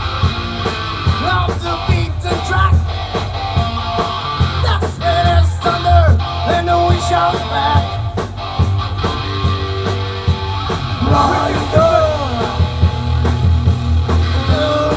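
Live heavy metal band playing: distorted electric guitar, bass guitar and drums, with a singer's shouted vocal lines coming in and out.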